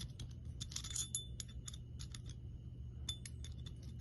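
Light metallic clinks and taps of small bicycle rear-hub parts being handled, metal knocking against metal, in a cluster about a second in and another about three seconds in.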